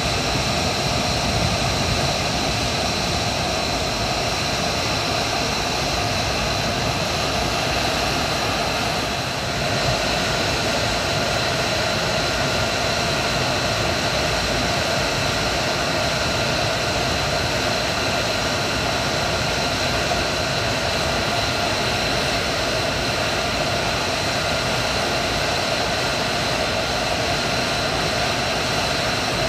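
F-35A Lightning II's Pratt & Whitney F135 jet engine idling on the ramp: a steady rush with a constant high whine.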